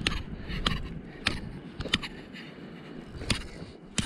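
Clothing rustling close to the microphone, with a handful of sharp clicks at uneven intervals as the wearer handles a caught trout.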